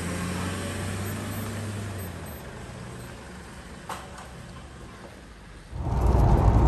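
Vehicle engine running with a steady low hum that fades away over the first couple of seconds. A single click comes near four seconds in, and a sudden loud low rumbling noise starts near the end.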